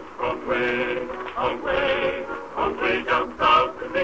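Early acoustic phonograph recording of a male voice singing with accompaniment. The sound is thin, with no high treble.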